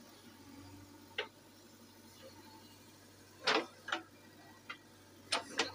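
A few short, sharp knocks and clacks of rubble against a backhoe loader's steel bucket as it digs into broken brick and dried mud. They come at uneven intervals, with a loud pair midway and another pair near the end, over a faint low engine hum.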